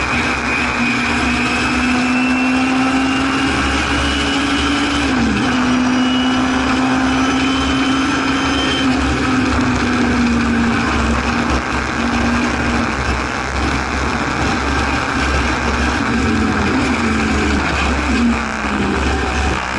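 Singer Chamois race car's rear-mounted four-cylinder engine pulling hard, heard from inside the car over heavy wind and road noise. The revs climb, dip briefly about five seconds in, ease off past the middle, and fall in a few quick steps near the end.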